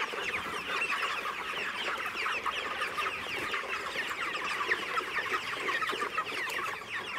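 A large flock of about a thousand 30-day-old broiler chickens calling continuously: a dense, steady chorus of many short, high, falling peeps and clucks overlapping one another.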